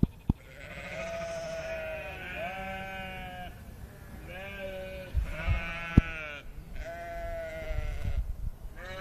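Sheep bleating: about four long, wavering bleats one after another, with a sharp click about two-thirds of the way through.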